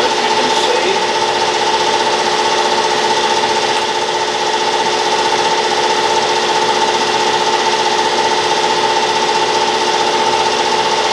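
Brown & Sharpe 10x24 universal grinder running steadily, a constant machine noise with an even whine.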